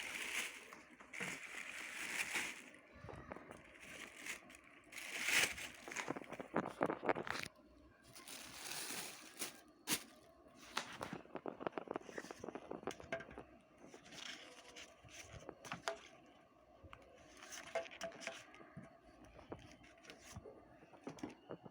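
Packaging being handled during unboxing: plastic wrapping and cardboard crinkling and rustling, with scattered small clicks and knocks of parts being handled. The rustling is loudest in the first half.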